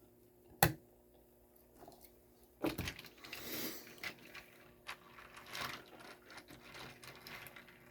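Handling noises from a packaged die-cast toy car set: a sharp click about half a second in, another around a third of the way through, then rustling and scattered small clicks and taps of plastic packaging being moved.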